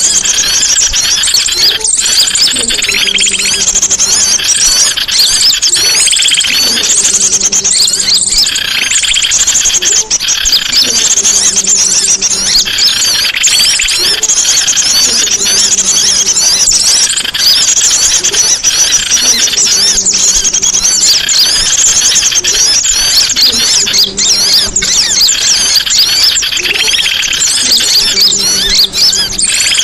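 Songbird singing continuously, a dense stream of rapid high chirps and trills, with a fainter low tone recurring every couple of seconds underneath.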